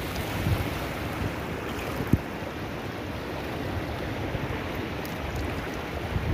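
Water sloshing around a person wading waist-deep, under wind rumbling on the microphone, with one brief low thump about two seconds in.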